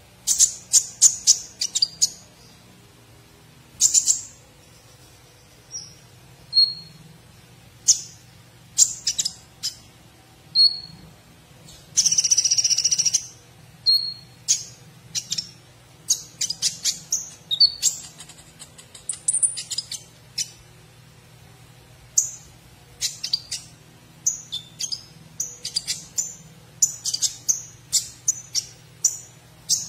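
Male Van Hasselt's sunbird (kolibri ninja) singing in its cage: bursts of high, rapid chirping trills every second or two, mixed with short single whistled notes, and one longer, denser phrase about twelve seconds in.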